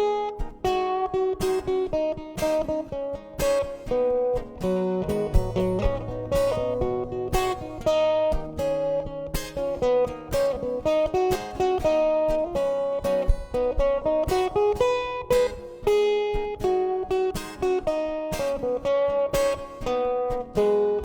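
Solo acoustic guitar playing an instrumental passage of a song, with a quick run of picked notes and chords ringing one after another.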